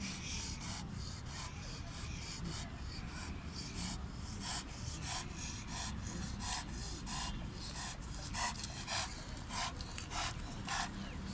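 Large white Pakistani bully-type dog panting, short breathy strokes about two a second, over a steady low rumble.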